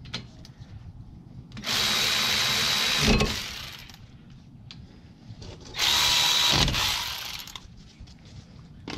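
A power driver with a 14 mm socket runs the two brake caliper bolts in, in two runs about four seconds apart. Each run is a steady whir with a high tone through it and ends with a brief louder surge.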